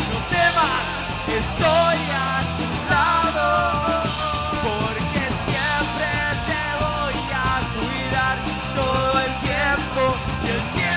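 Punk rock band playing live: a singer over electric guitar, electric bass and a drum kit with cymbals.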